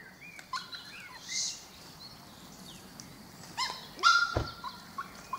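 A dog barks twice, about three and a half and four seconds in, the second bark louder, with birds chirping faintly in the background.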